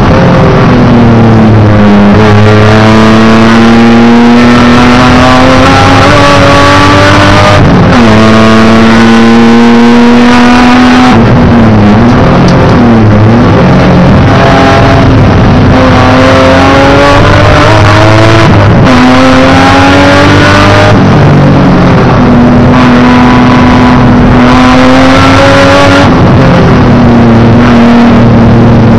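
Race car engine heard loud from inside the cockpit, being driven hard on a circuit: the engine note climbs steadily under acceleration and drops sharply at gear changes and braking for corners, about five times.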